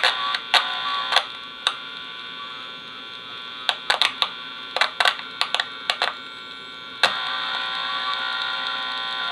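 Electrical buzz from the room lights, picked up by a crystal radio and played through an amplifier probe, with sharp clicks and crackles scattered through it as contact is made. The buzz drops back for a few seconds, then returns stronger about seven seconds in.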